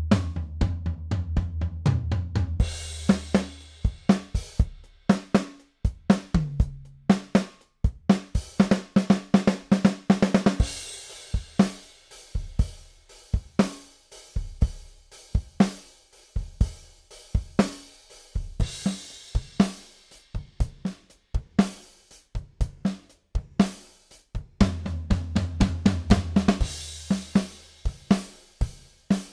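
Sampled acoustic drum kit from Toontrack's Stockholm SDX playing a MIDI groove at 120 BPM: kick, snare, hi-hat and cymbals. The kit is heard through different mix presets, changing partway through.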